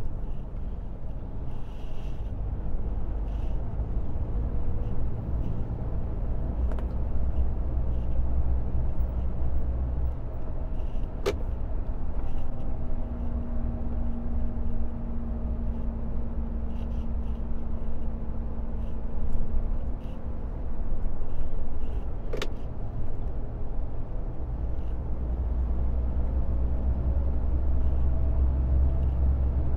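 IVECO truck's diesel engine and tyre noise heard inside the cab while driving: a steady low rumble. Two sharp clicks come about eleven seconds apart, near a third and three quarters of the way through.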